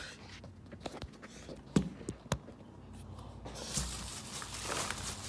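Handling noise as a phone is set down: a few scattered knocks and taps, then a noisy hiss that rises from about three and a half seconds in.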